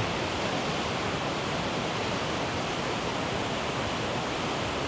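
Steady rushing of a waterfall, an even, unbroken noise.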